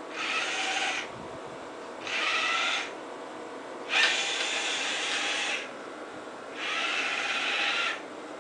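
Scribbler robot's geared drive motors whirring in four short runs, with pauses of about a second between, as the robot drives and turns in stages. A sharp click opens the third and longest run.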